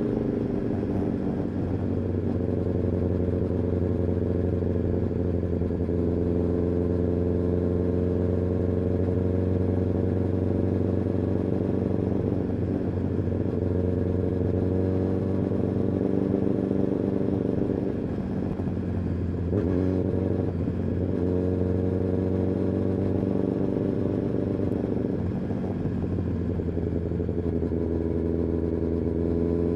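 Kawasaki ZX-10R inline-four engine and exhaust running under way at a fairly steady engine speed. The revs dip briefly about two-thirds of the way through, then come back up.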